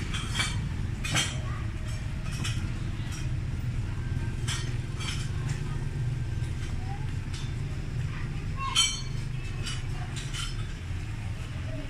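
Open-air market ambience: a steady low rumble with scattered clinks and knocks at irregular intervals, the loudest about nine seconds in, and faint voices.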